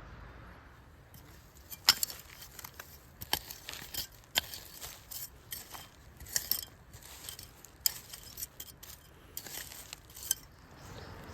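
Irregular sharp clinks and knocks of hard objects being handled, starting about a second in and stopping near the end, the loudest about two seconds in.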